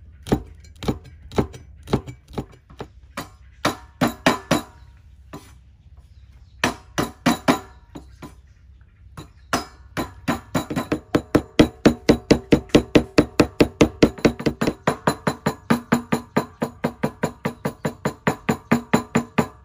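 Cleaver chopping on a wooden cutting board: scattered single chops with pauses, then, about ten seconds in, a fast steady run of about four chops a second as the food is minced.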